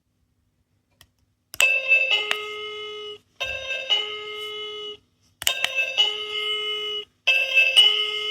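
Sound-making capsule toy playing a two-note electronic doorbell chime, a high note then a lower one, four times in a row, each set off by a button click.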